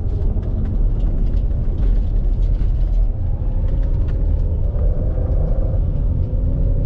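A vehicle on the move: a steady low rumble of engine and road, with frequent small rattles and knocks. From about three seconds in, a whine slowly rises in pitch.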